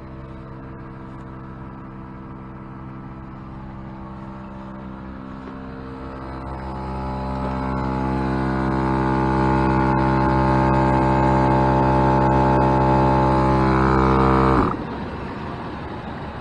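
Dobinsons Zenith 6.0 CFM 12 V portable air compressor running steadily while inflating a tire, getting louder about halfway through, then shut off abruptly near the end.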